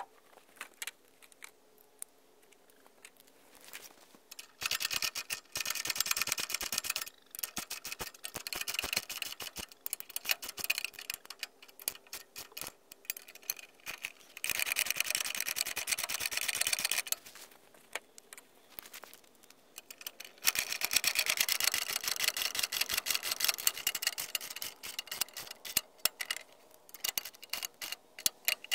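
Power driver running in several bursts of a few seconds each, a rapid clatter, driving screws to fasten an electrical box to a wooden post.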